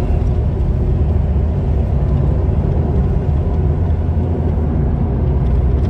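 Steady low rumble of a moving taxi heard from inside the cabin: engine and tyres on the road.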